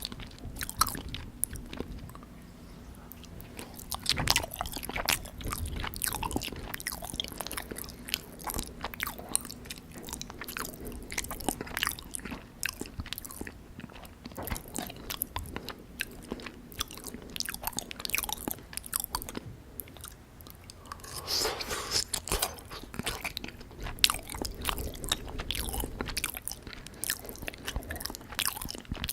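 Close-miked chewing of soft, syrup-soaked gulab jamun: irregular wet mouth clicks, smacks and squelches, busiest a little past two thirds of the way through.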